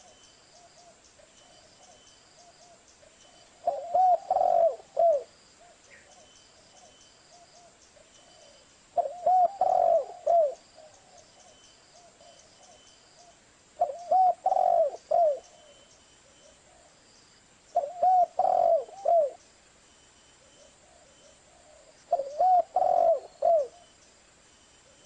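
Spotted dove cooing: five phrases of several low, hooting coo notes each, one about every four to five seconds.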